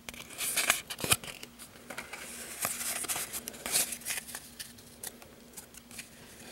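Pokémon trading cards being shuffled and slid against each other in the hands, a run of quick dry clicks and papery rustles.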